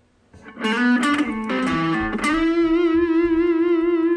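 Intro music on electric guitar: a quick run of notes about half a second in, then one long held note with a wavering vibrato.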